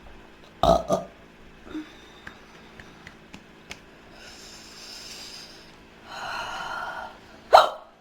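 A girl burping: two loud burps in quick succession about a second in and one more sharp one near the end, with breathy inhales and exhales between them.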